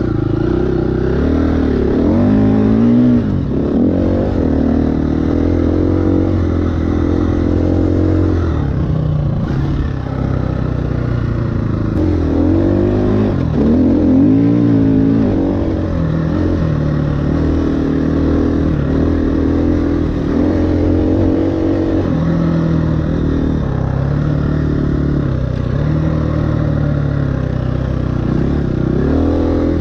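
KTM 350 EXC-F's single-cylinder four-stroke engine under way, its revs rising and falling over and over as the rider works the throttle, with sharp climbs in pitch near the start, about halfway through and near the end.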